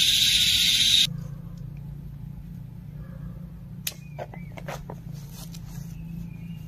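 A loud, steady high-pitched hiss that cuts off suddenly about a second in, followed by light clicks and knocks of a tent pole being handled and fitted to the tent, with a few short bird calls in the background.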